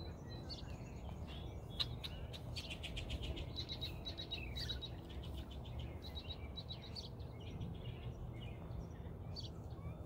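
Many small birds chirping and twittering around a colony bird house, with quick trilled runs of notes that are busiest in the middle seconds, over a steady low rumble.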